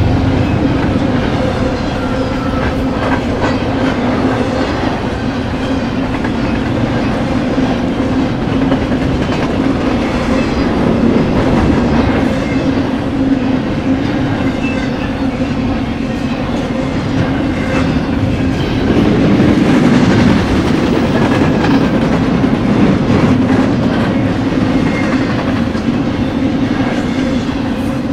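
Double-stack intermodal freight train's loaded container well cars rolling past: a steady rumble of steel wheels on rail with a low hum and a light clickety-clack of the wheels, swelling a little partway through.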